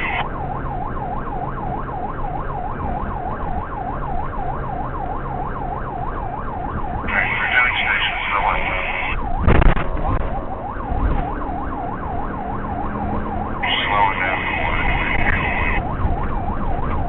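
Police siren on a fast yelp, rising and falling about three times a second, over the patrol car's engine and road noise. A higher steady tone comes in twice for about two seconds, and a loud thump comes about halfway through.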